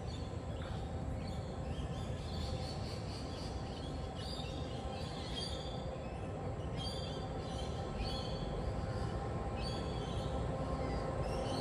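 Low, steady rumble and hum of a diesel-hauled container train drawing near, growing slightly louder. Birds chirp in short bursts over it.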